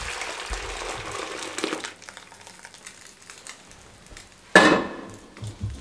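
Thick, hot, cornflour-thickened milk pouring from a wok into a stainless-steel mesh strainer over a steel pot, a steady pour that stops about two seconds in. Near the end comes one sudden, loud metal clank that dies away quickly.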